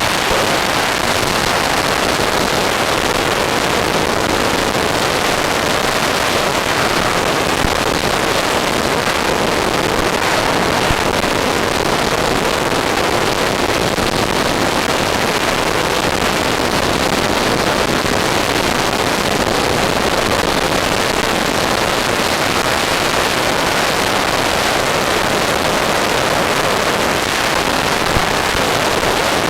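Steady, unchanging rushing hiss on the RC F-14 Tomcat model's FPV onboard audio feed, with no motor pitch rising or falling.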